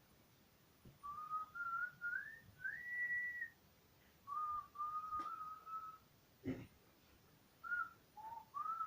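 A person whistling a tune: short phrases of single clear notes that slide and step between pitches, with pauses between phrases. A couple of light clicks fall about five and six and a half seconds in.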